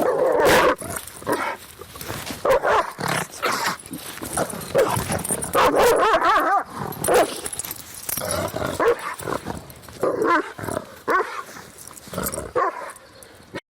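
Angry dogs barking, with barks coming at an irregular pace. The barking stops abruptly near the end.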